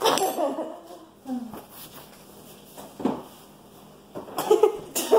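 A paper towel crinkling as it is handled and wiped across the mouth, with a few short wordless vocal sounds.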